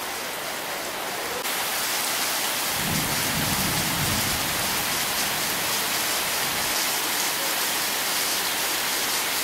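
Heavy rain pouring steadily onto bare ground and foliage, getting louder about a second and a half in, with a low rumble lasting a second or so about three seconds in.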